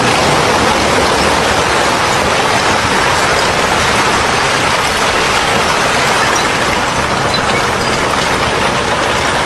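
Heavy construction machinery running with a steady, loud, noisy drone.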